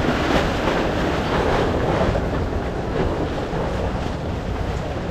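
Steady rushing noise of rain and wind, with wind buffeting the microphone.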